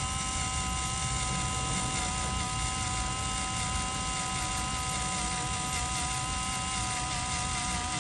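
Power drill running steadily in reverse on its slow setting, a Grabit extractor's burnishing end cutting a groove into a stripped screw head; a steady motor whine.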